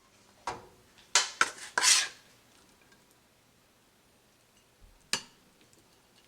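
Kitchenware clattering: a knock, then a quick loud run of four or five clinks and clatters of a utensil against dishes or cookware about a second in, and one more knock near the end.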